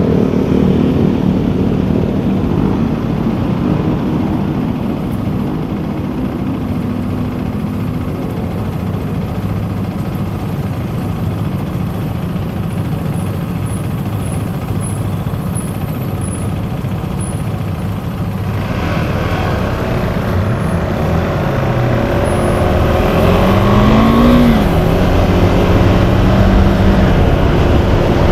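KTM 390 Adventure's single-cylinder engine running low and steady in slow traffic, then accelerating away through the gears about two-thirds of the way in, its pitch rising and dropping at each shift. Wind rushes on the microphone as speed builds.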